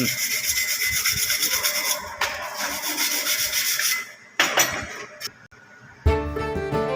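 Harsh, steady rasping and scraping noise for about four seconds, then a shorter burst of it. Background music with sustained string-like tones comes in about six seconds in.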